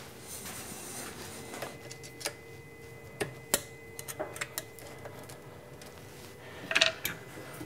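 Scattered small metallic clicks and taps as a screw is worked out of a hole in a milling machine's head, with a louder cluster of clatter near the end and a faint steady hum underneath.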